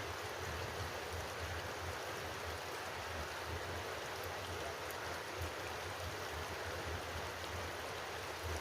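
Steady rushing noise of water, even throughout, with a low fluttering rumble underneath.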